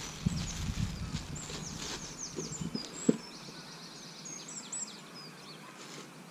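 Small birds singing in quick, high, downward-sliding chirps. In the first second or so there is a low rustle of handling as the crowns come out of a plastic bag, and a single sharp click about three seconds in.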